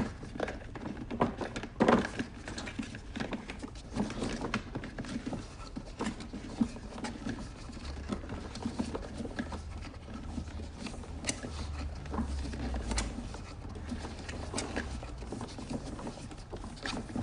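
Hose reel on a Gerni pressure washer being wound in by hand: an uneven run of clicks and knocks from the turning reel and the hose, with the loudest knocks about two seconds in.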